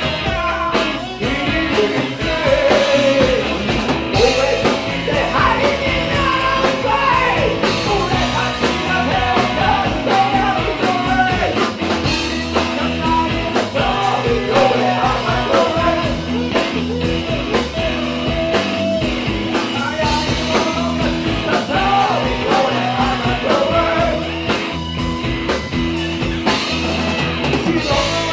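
Rock band music with drums, bass and electric guitar, and a wavering lead melody carried over the top.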